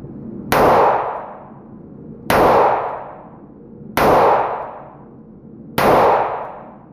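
Ruger GP100 .357 Magnum revolver fired four times at a slow, even pace, one shot about every second and three-quarters. Each report rings on in a long echo off the enclosed wooden range.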